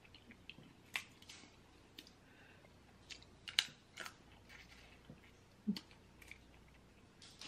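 Small crab leg shells cracking and snapping as they are broken apart by hand, a few sharp, irregular clicks, with faint eating sounds between them.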